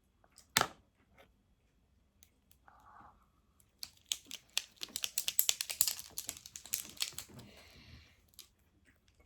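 Small plastic items handled by hand. A single sharp click comes about half a second in. It is followed by a dense run of rapid clicks and crinkles lasting about four seconds.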